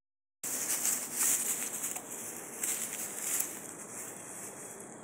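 Tall, partly dry grass rustling and crackling in short irregular bursts as sheep graze and move through it close by.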